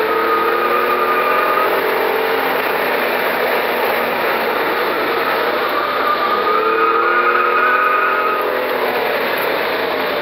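Hyundai Sonata's V6 engine heard from inside the cabin, pulling at around 4,000 rpm under acceleration, its note rising midway and easing off near the end.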